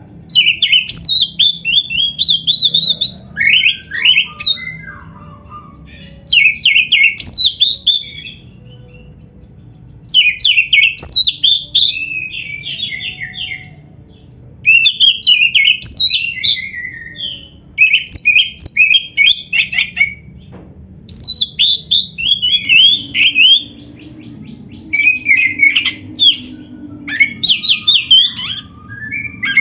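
Oriental magpie-robin (kacer) singing a full, varied song: loud bursts of rapid rising and falling notes, each burst two to three seconds long, with pauses of a second or two between them. A faint low hum runs underneath.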